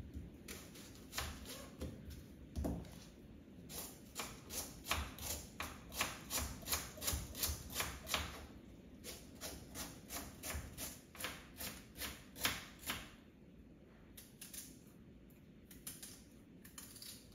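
Knife slicing through red onions onto a wooden chopping board, a steady run of light knocks about two or three a second that thins out to a few scattered cuts after about 13 seconds.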